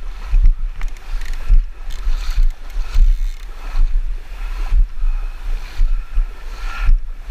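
Shallow river water rushing and sloshing around the angler, with irregular low rumbling thumps on the action-camera microphone.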